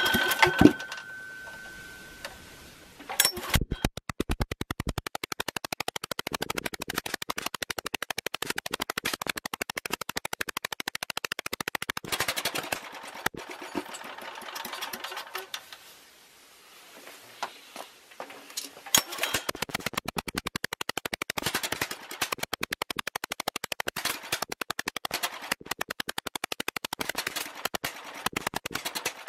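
Small single-cylinder generator engine running with rapid, even firing pulses. It fades almost away about halfway through, then picks up and runs again. The engine is fitted with an ignition coil from a different model and is hard to keep going.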